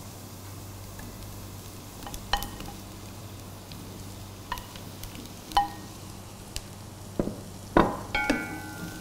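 Chopped cauliflower tipped from a ceramic bowl into a pot of butter, onion and garlic, with a faint sizzle and scattered knocks and clinks of a wooden spoon and the bowl against the pot. One clink near the end rings on briefly.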